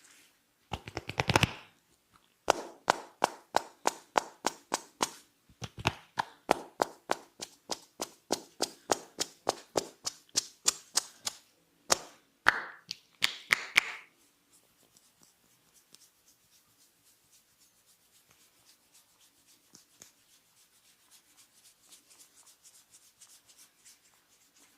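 Rapid sharp taps of a barber's percussive massage, about three a second with a quick flurry near the start, stopping about 14 seconds in; after that only faint soft rubbing.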